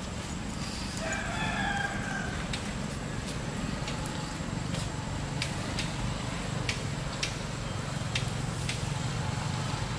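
An animal call with a rooster-crow-like pitched, multi-part shape, starting about a second in and lasting about a second. It sits over a steady low rumbling background with scattered sharp clicks.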